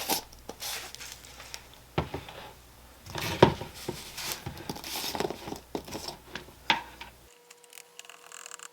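Crinkling and rustling of drink-mix packaging with scattered taps and clicks as powdered drink mix is scooped and handled. Near the end it drops to quieter clicks over a faint steady hum.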